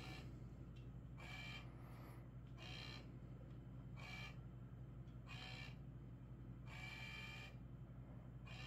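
An automatic laser cat toy's small motor whirs faintly in short, evenly spaced bursts, about one every second and a half, as it swings its red laser dot. A low steady hum runs underneath.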